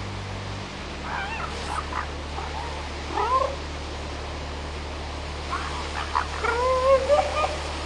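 Northern elephant seals crying: several high, wavering wails, growing louder and more frequent near the end.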